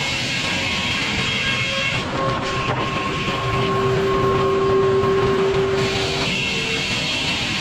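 Sawmill machinery running steadily, a continuous mechanical rumble with high whining tones that shift and change every couple of seconds.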